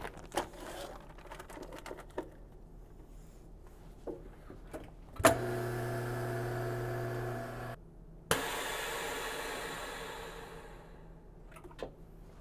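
Chamber vacuum sealer running a cycle on a bag of marinated short ribs: after a few light clicks, the vacuum pump starts with a click about five seconds in and runs with a steady hum for about two and a half seconds, then cuts off. After a click, air hisses back into the chamber, fading away over about three seconds.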